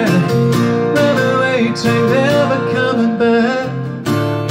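Acoustic guitar strummed live, with a singing voice over it.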